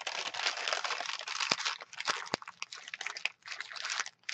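Crinkled notebook paper crackling as a page is lifted, turned and smoothed flat by hand: a dense rustle for about the first second, then scattered crackles with a couple of sharp clicks.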